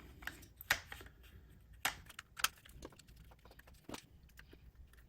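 A few scattered small clicks and taps, about half a dozen in all, of parts of an HO-scale model locomotive being handled as its weight is fitted back in.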